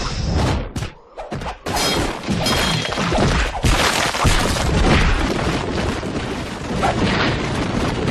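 Cartoon fight sound effects of stone warriors being smashed: rock crashing, shattering and thudding under blows, almost without a break apart from a short lull about a second in.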